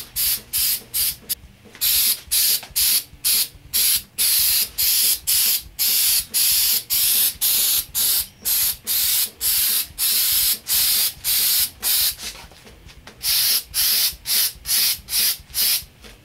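Aerosol can of Flex Seal liquid rubber sealant spraying in rapid short bursts, about two to three hissing squirts a second, with a brief pause about three-quarters of the way through.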